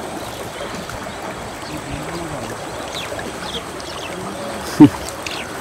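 Steady trickling and splashing of water as fish are tipped from a hand scoop net into a mesh keep-net in a pond, with a few faint short chirps. About five seconds in, one short, loud sound slides sharply down in pitch.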